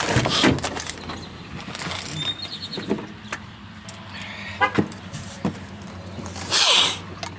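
Shopping being loaded into a van and the driver climbing back into the seat: scattered knocks, clicks and rustles, with a louder rustle near the end, over a steady low hum.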